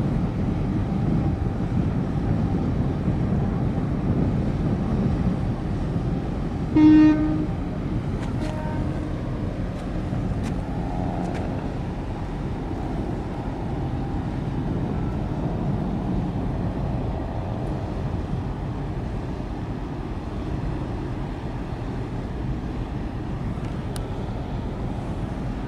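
One short, loud ship's horn blast about seven seconds in, with a fainter short toot a second and a half later, over a steady low rumble of wind and water.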